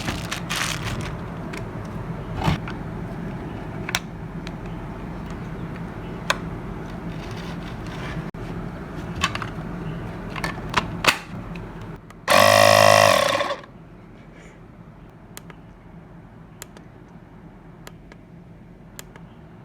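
Portable cordless tyre inflator's compressor running steadily with scattered clicks. About 12 seconds in comes a loud pitched tone lasting just over a second, and after that only a quieter hum remains.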